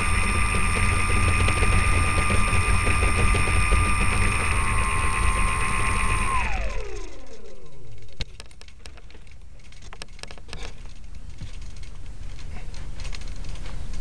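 A remote-control plane's motor and propeller whine steadily, heard through the camera mounted on the plane, over a heavy low rumble. After about six seconds the throttle is cut and the whine glides steeply down to a stop. Scattered clicks and rustling follow as the plane is handled.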